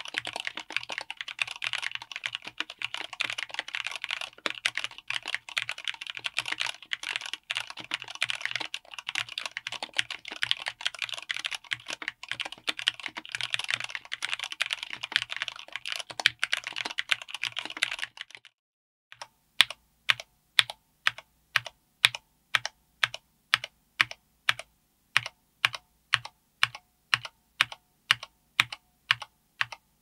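Mechanical keyboard with Cherry MX Black Clear-Top linear switches, MT3-profile PBT keycaps, an FR4 plate and an aluminium case, typed on fast in a steady run of key clacks. About 18 seconds in the typing stops, and after a short pause single keys are pressed and bottomed out slowly, about two evenly spaced clacks a second.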